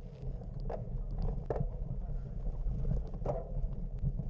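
Steady low rumble of wind on the microphone, with scattered sharp clicks and knocks and faint voices.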